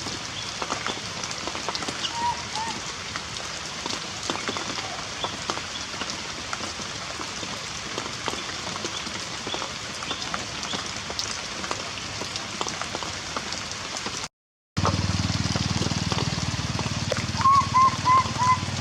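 Heavy rain falling steadily with a patter of drops. A baby monkey gives short high squeaking cries: two a couple of seconds in, and a quick run of about six near the end.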